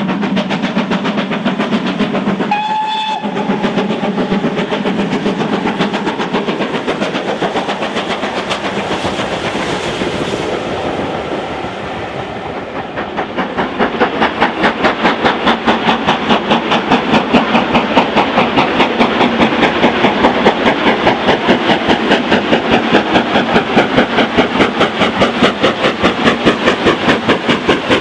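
Steam locomotive working a train, with a short whistle blast about three seconds in. From about thirteen seconds in, louder: LNER B1 4-6-0 61264 working hard up the line, its exhaust beating fast and evenly.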